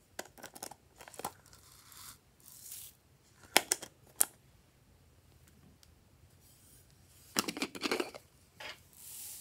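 Hard plastic clicks and taps from handling a plastic crown-shaped trinket box and its clasp, with two sharp clicks, the loudest sounds, at about three and a half and four seconds in. About seven and a half seconds in comes a short burst of clattering as a plastic container is tipped over the tray, and a soft hiss near the end.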